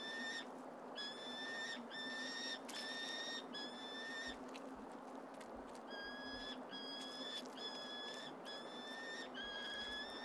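Gyrfalcon chick begging calls: a series of high-pitched, even calls, each about half a second long and coming about one a second, with a short break midway.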